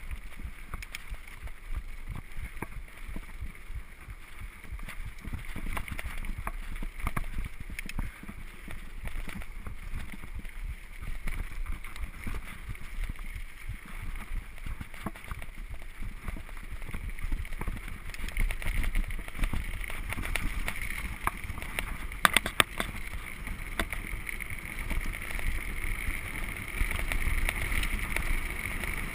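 Gary Fisher HiFi Pro Carbon mountain bike ridden fast over a muddy dirt trail: tyres rumbling on the ground, the frame and parts rattling and knocking over bumps, and wind buffeting the microphone. It grows louder about two-thirds of the way through as the pace picks up.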